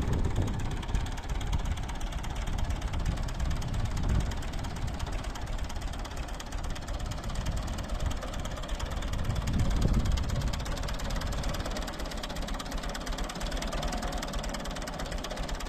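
Ford 3910 tractor's three-cylinder engine running with a misfire, its beat uneven, with irregular swells in loudness.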